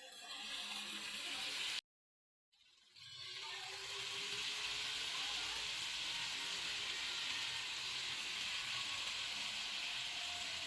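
Food frying in oil in a pan, a steady sizzling hiss, cut off by a brief silent gap about two seconds in, then building back up and holding steady.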